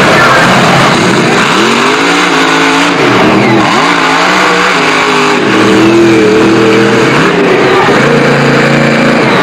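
Monster truck engines racing at full throttle, revving hard, with the engine note climbing and dropping several times as the throttle is opened and closed.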